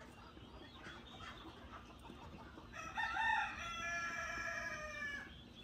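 A rooster crowing once, starting about three seconds in and held for over two seconds, with faint clucking before it.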